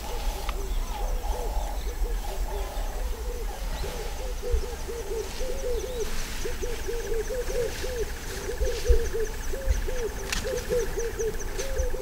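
A chorus of wild animal calls: many short, low, arched notes overlapping several times a second, over a faster high chirping. From about halfway to near the end a steady high trill joins in.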